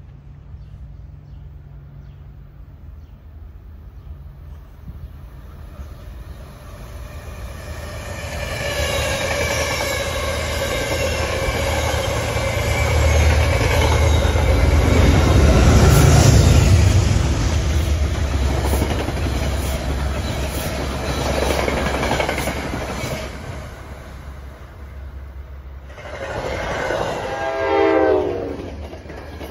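A passenger train hauled by a P32AC-DM diesel locomotive passes at speed. The engine rumble swells to its peak about halfway, and the wheels clack over rail joints as the coaches go by. Near the end a train horn sounds, its pitch dropping as it passes.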